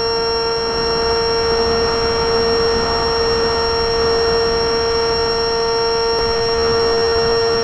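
The RC flying wing's motor and propeller, recorded by a camera on board the plane, holding a steady whine at one constant pitch, with a faint rush of air underneath.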